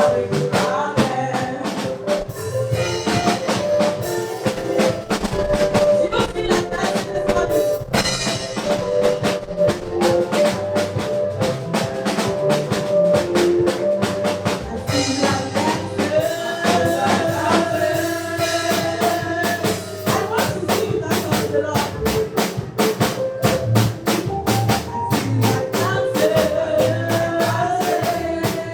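Live gospel praise music: a drum kit keeps a steady, fast beat under sustained melody lines.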